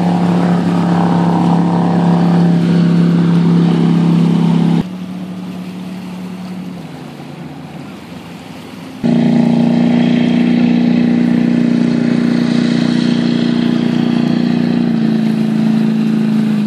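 Jet boat engine running hard at speed with a steady engine note. It drops suddenly quieter about five seconds in, then comes back loud and slightly higher about nine seconds in.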